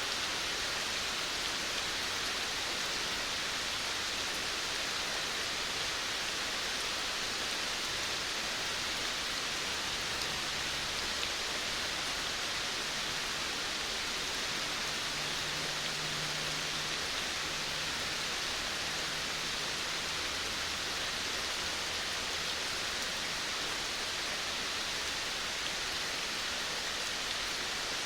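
Steady rain falling on a veranda, an even hiss with no break in it. A faint low hum comes in for a few seconds around the middle.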